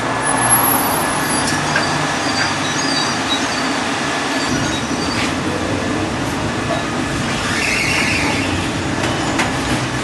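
A 71-630 tramcar running on rails, heard from the driver's cab: a steady rumble and hiss of the wheels and running gear.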